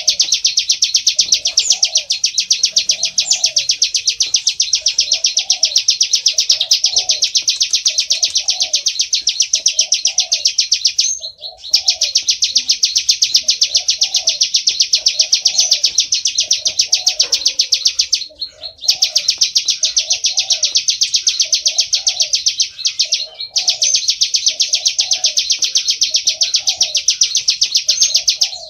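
Plain prinia (prenjak sawah) song: a loud, rapid, buzzy trill of notes repeated without pause, breaking off briefly three times. A fainter lower note repeats underneath about every half second. This is the song used as a lure call to draw in wild prinias.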